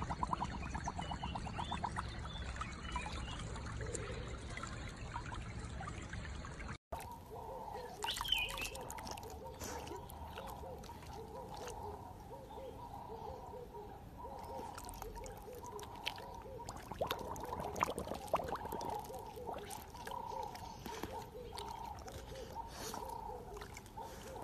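Water trickling and sloshing around a husky lying in a shallow stream, then, after a cut, water lapping around a husky in a swimming pool, with faint pitched sounds repeating about once or twice a second.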